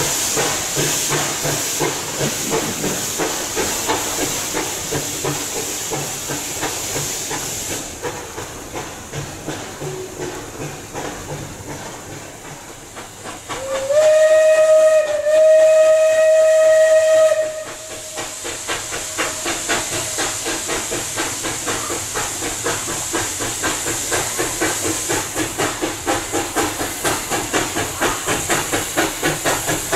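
Exhaust beats of a 2-6-6-0 Mallet steam locomotive, fading away at first. About 14 seconds in the steam whistle sounds, a short blast and then a longer one, and after it the beats of the approaching locomotive build up steadily and grow louder.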